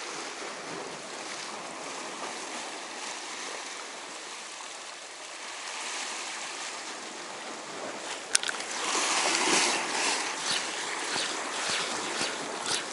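Sea water washing steadily against shore rocks. A sharp click comes a little past the middle, and then the wash grows louder with irregular splashes.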